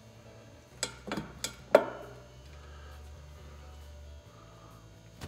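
Sharp metal knocks and clinks from a Mazda 13B rotary engine's housing being worked loose by hand: four in quick succession, the last the loudest and ringing briefly, with one more near the end.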